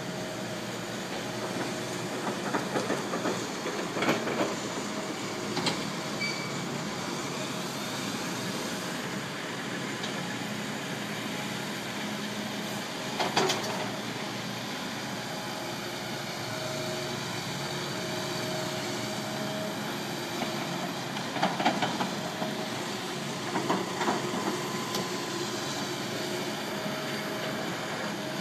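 Heavy diesel machinery, a tracked excavator and dump trucks, running steadily, with several short bursts of clanking and knocking as the excavator's steel bucket works rocky soil.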